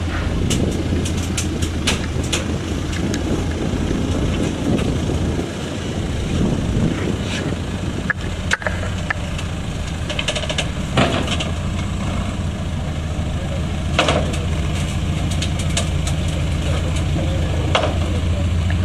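Volkswagen Amarok pickup's TDI diesel engine running steadily at low revs as it crawls over an off-road obstacle and down metal ramps, with occasional sharp clanks.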